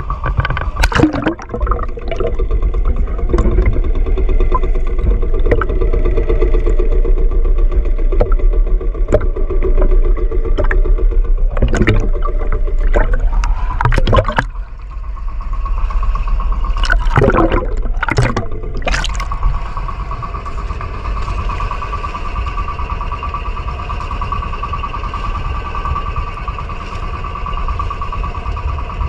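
A fishing boat's engine running continuously, with several sharp knocks in the middle; after about twenty seconds in, the engine settles to a steadier, quieter running.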